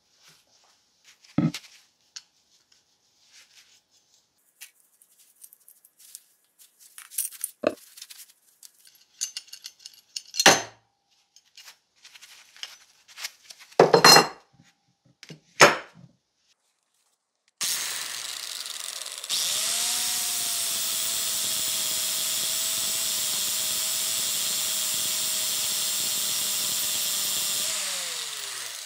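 Metal parts of an old bolt cutter handled and set down on a bench, with a few sharp clanks. About 18 seconds in, an angle grinder starts and runs steadily, grinding the peened head off a pin in the cast-iron handle. Its motor pitch falls as it winds down near the end.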